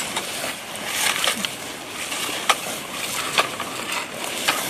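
Gravel crunching and scraping under soldiers crawling on their bellies, with several sharp cracks over it, the loudest about two and a half and three and a half seconds in.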